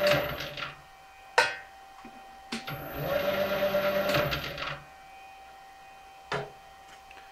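Metal lathe switched off, its motor and chuck running down, then a sharp click. A second click restarts it: the motor runs up in pitch, runs steadily for about two seconds, then is switched off and dies away. Another click comes near the end.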